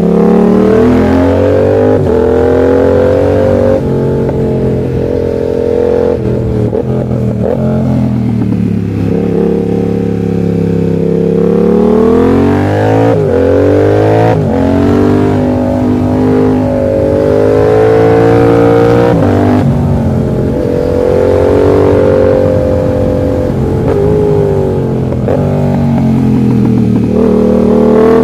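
Yamaha MT-07's 689 cc parallel-twin engine under way, its revs climbing and dropping again and again as the throttle is rolled on and off through a series of bends.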